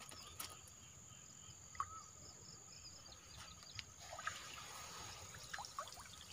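Faint insects: a steady high-pitched drone with a rapid pulsing chirp that fades out about four seconds in. Faint trickling and dripping water in the second half as the lift net's mesh comes up out of the water with small fish flicking in it.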